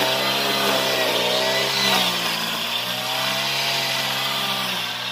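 Brush cutter engine running at high speed, its pitch wavering slightly as the spinning trimmer-line head is swept through grass.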